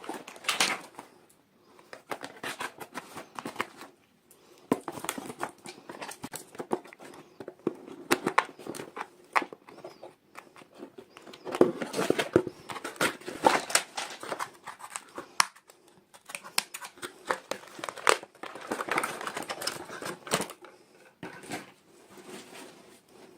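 Toy packaging being opened by hand: crinkling and tearing of wrapping, with many small clicks and taps in irregular bursts and short pauses between them.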